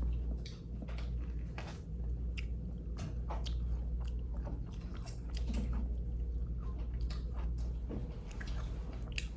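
A person chewing something crunchy close to the microphone: many small, irregular crunches over a steady low hum.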